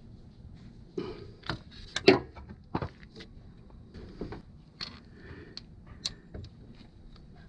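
A run of irregular clinks and knocks from metal engine parts and tools being handled, the loudest a sharp knock about two seconds in.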